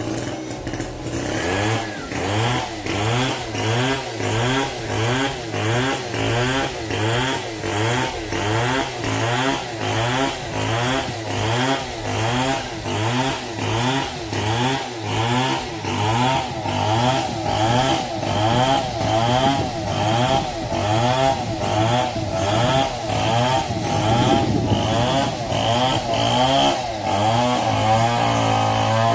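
A small engine-driven machine running under a regularly pulsing load, about three beats every two seconds, its pitch rising and falling with each beat.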